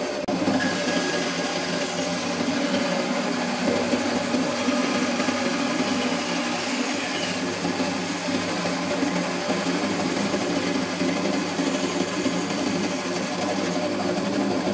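Band saw running with a steady motor hum and blade hiss as a small block of wood is fed and turned against the blade to cut out a shape.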